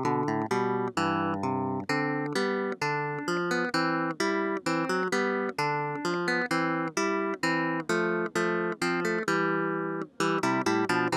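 Credits music played on a plucked string instrument: a steady run of quick single notes, about four a second, each struck sharply and fading.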